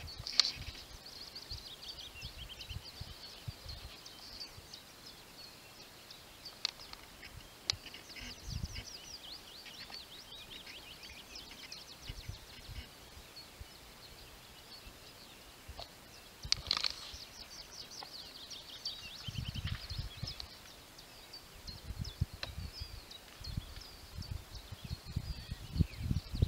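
Many birds singing together in a dense chorus, with two loud, short, harsh barks of a roe deer buck, one at the very start and one about two-thirds of the way through.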